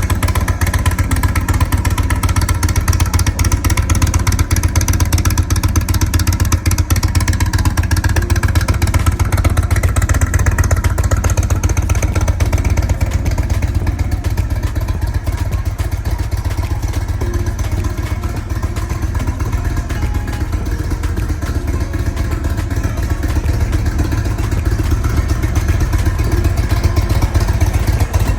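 Indian Chieftain's Thunder Stroke V-twin engine running steadily at idle, a loud low pulsing rumble with no revving.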